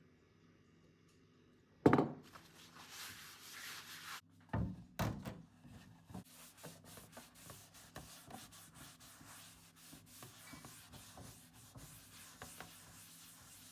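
Flaxseed oil being rubbed into a wooden cutting board: a soft, scratchy rubbing on the wood. A sharp knock comes about two seconds in, the loudest sound, and two more wooden thumps follow around five seconds.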